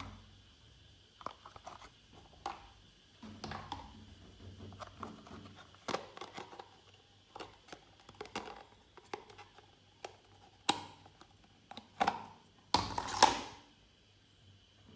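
Glossy slime being squished and pressed by hand: irregular wet clicks and crackles, growing louder and denser toward the end, with a longer crackling stretch near the end.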